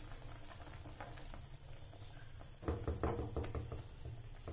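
A wooden spatula stirring and tapping in a steel kadhai of simmering milk and grated carrot, with a few louder knocks against the pan about two-thirds of the way through, over a steady low hum.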